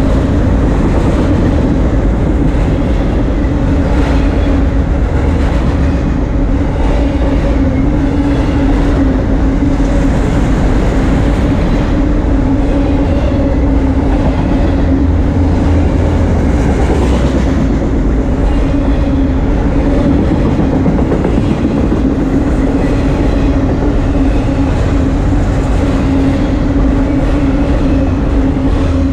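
Autorack freight cars rolling past at speed: a loud, steady rumble and clatter of steel wheels on the rails, with a steady hum over it.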